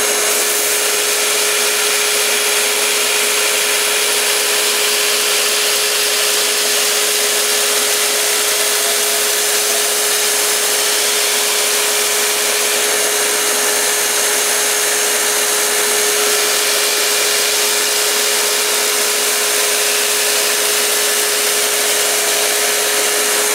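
Belt grinder running with a steady hum and a continuous hiss as a large Bowie knife's steel edge is held against the slack section of its abrasive belt to sharpen it.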